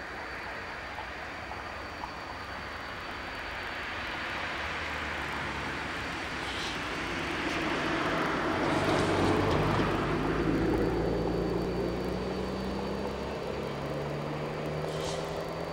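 Diesel railcar's engine running as the train pulls toward the listener over the points. It grows louder to a peak a little past halfway, then eases off somewhat.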